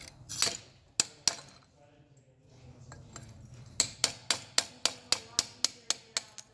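Hammer blows knocking the mold off a bronze casting: three sharp strikes in the first second and a half, then after a pause a quick run of about eleven blows, roughly four a second.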